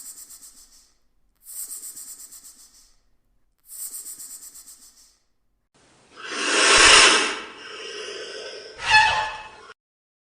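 Three short, high, raspy rattles about two seconds apart, then a loud breathy hissing of a vulture lasting about three seconds, with a second sharp hiss near the end.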